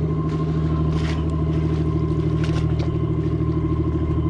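Steady engine drone with a fast, even pulse running through it, and a few faint clicks over the top.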